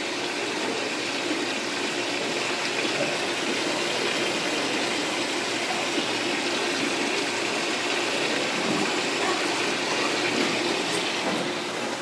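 Baxter and Sons hydraulic elevator coming down to answer a hall call: a steady rushing hiss, with a few faint clicks near the end as the cab arrives.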